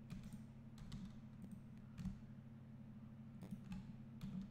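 Scattered clicks of a computer mouse and keyboard, about eight short clicks at irregular intervals, over a steady low hum.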